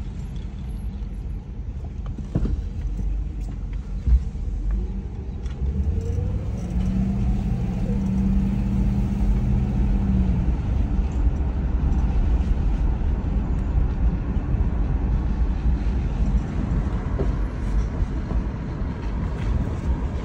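A car driving, with a low engine and road rumble. About six seconds in, a rising engine note is heard as it speeds up, holding steady for a few seconds.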